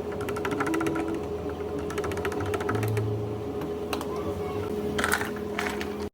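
Quick runs of light clicks and taps, like typing, over a steady hum, with a short louder clatter near the end.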